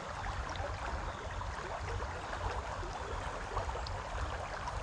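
Steady rush of a flood-swollen creek running high and fast, with a low rumble underneath.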